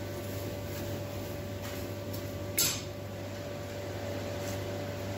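A steady low mechanical hum of workshop machinery, with a single short clank about two and a half seconds in.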